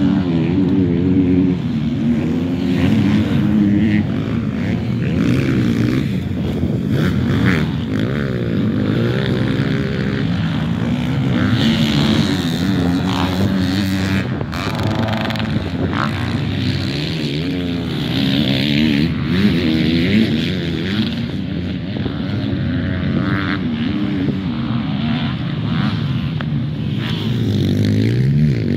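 Motocross dirt bike engines racing round the track, revving up and down over and over, with several engines' rising and falling pitches overlapping.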